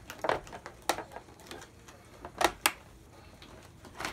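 Hard plastic toy playset parts knocking and clicking against each other as they are pushed and wiggled into alignment: a scatter of short sharp knocks, the loudest two close together about two and a half seconds in.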